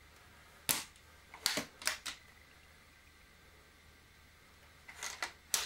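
Weihrauch HW99 break-barrel spring air rifle being cocked and loaded: a cluster of sharp metallic clicks about a second in as the barrel is broken open and the spring cocked, then a few more clicks near the end as the barrel is closed.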